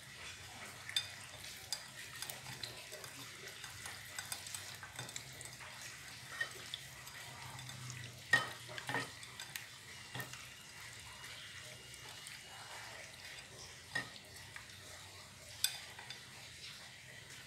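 Food frying with a faint sizzle in a clay pot while a utensil stirs it, knocking and clinking against the pot now and then. The loudest knock comes about eight seconds in.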